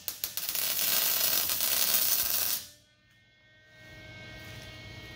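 Lincoln MIG welder arc crackling and hissing steadily while tack-welding a steel body mount to the truck frame. It cuts off sharply about two and a half seconds in, leaving a faint steady hum.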